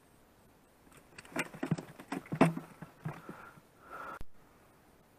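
Handling noises in an inflatable boat: a cluster of knocks, clicks and scrapes lasting about three seconds, ending in a sharp click.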